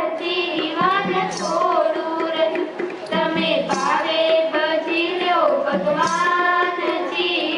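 Group of girls singing a Gujarati bhajan together, with tabla accompaniment.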